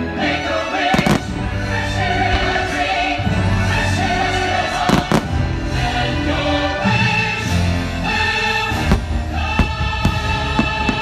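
Choral music with a choir singing, and fireworks going off over it in several sharp bangs, a few close together near the end.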